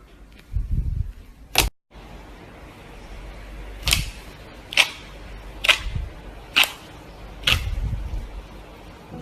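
Slime being squeezed and worked by hand, giving sharp air-bubble pops: one, then after a brief gap five more at an even pace of about one a second, with soft low squelches under some of them.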